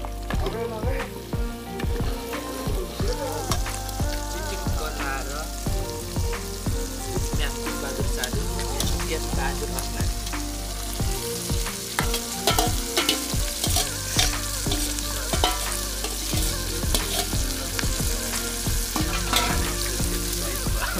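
Hornet larvae and pupae sizzling in hot oil in an iron kadai, with a steel ladle repeatedly clinking and scraping against the pan as they are stirred and more are tipped in.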